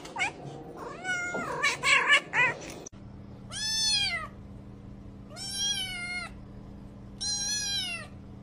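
Many cats meowing at once, short calls overlapping, then a single kitten giving three long, high meows about two seconds apart over a faint steady hum.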